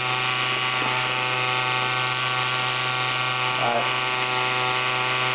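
Dremel 4000 rotary tool running at a steady speed, spinning a small 220 V pump motor used as a generator. It gives a steady electrical hum with a strong low tone and many evenly spaced overtones.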